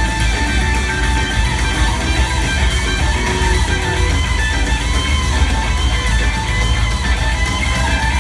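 Live rock band playing an extended instrumental jam: an electric guitar lead with notes bending up and down over bass and drums.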